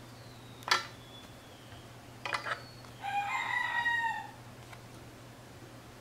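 A sharp click a little under a second in, a quick cluster of clicks just after two seconds, then a single short animal call of just over a second with a slight fall in pitch at the end.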